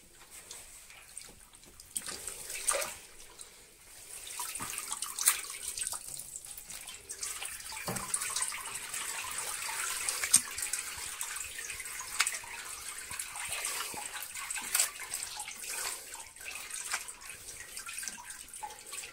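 Wet cheese curd being scooped by hand from a cauldron of whey and packed into a plastic draining basket: whey splashing, dripping and squelching, with scattered sharp splashes.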